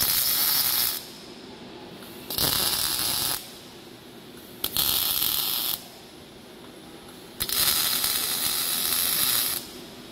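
Robotic MIG welding torch laying four short welds on a clamped tube: each a loud hiss and crackle of the arc lasting one to two seconds, the last about two seconds, with quieter pauses between.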